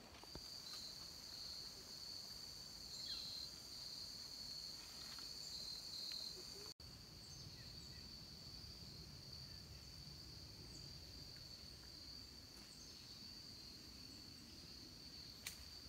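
Faint insect chorus: one steady, high-pitched trill that runs on without a break, over a low background hiss. It drops out for an instant about seven seconds in.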